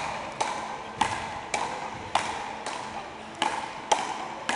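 Wooden frescobol paddles hitting a rubber ball back and forth in a rally, sharp taps about every half second in a sports hall.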